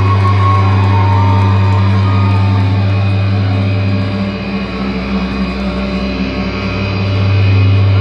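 Loud live rock band holding a sustained, droning electric guitar and bass chord with no drum beat. It dips a little about halfway through and swells back up near the end.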